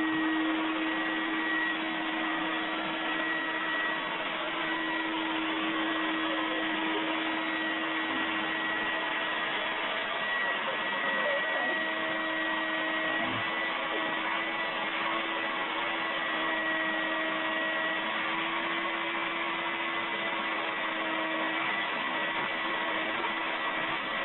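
Vacuum cleaner running steadily: an even rush of air with a constant hum and a thin high whine.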